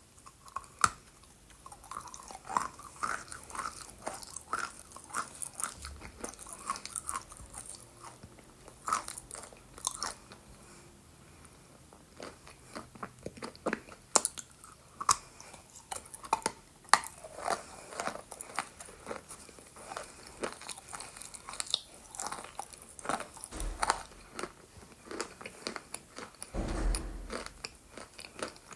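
Close-miked biting and chewing of moistened chalk: a steady run of irregular crisp crunches and wet chews, with a couple of low thuds near the end.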